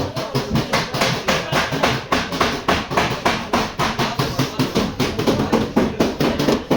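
Hammer beating sheet-metal car body panel in rapid, even blows, about six a second: panel beating to work out accident damage.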